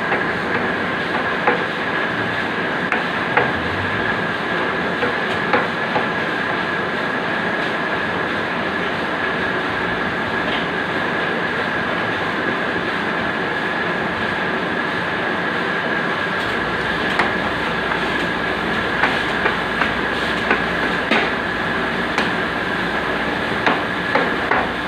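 QZ-201 cutting machine running steadily with a constant high whine and scattered sharp clicks; a low rumble joins about two-thirds of the way through.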